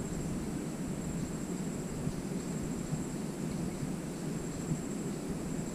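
Steady outdoor ambience: an even low rumble with a continuous thin, high insect drone over it.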